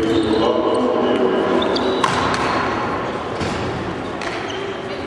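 Badminton rally in a sports hall: sharp racket hits on the shuttlecock, the clearest about two seconds in, with thuds on the wooden court floor and echoing voices in the hall.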